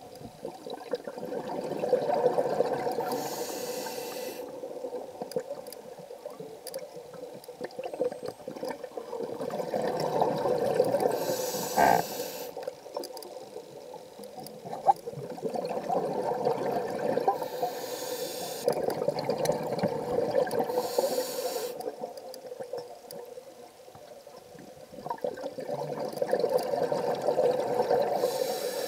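Scuba diver breathing through a regulator underwater: several slow breaths, each a short hiss of inhaled air followed by a longer bubbling rumble of exhaled air.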